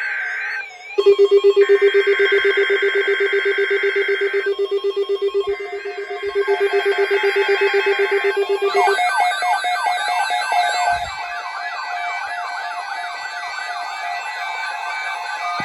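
Emergency Alert System SAME header: three long bursts of screechy digital data tones, each a few seconds long with about a second between them. They are layered with a fast-pulsing low alarm buzz and wavering siren sounds. After about nine seconds the data stops, leaving a warbling jumble of rapid falling chirps and sirens.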